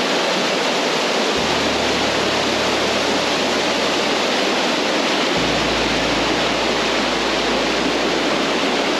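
Rain-swollen, muddy river rushing past in flood: a loud, steady wash of fast-moving water.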